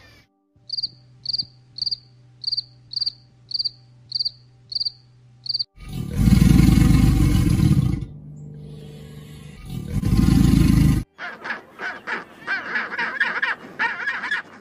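A string of about nine short, high, evenly spaced chirps; then a loud, low rumbling growl from an alligator in two long bouts; then a quick run of pulsing, braying penguin calls.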